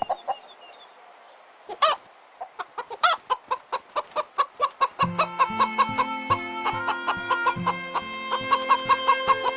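Cartoon chicken clucking in quick, even pulses, with a couple of loud squawks in the first half. About halfway in, music with a bass line and held notes joins the clucking.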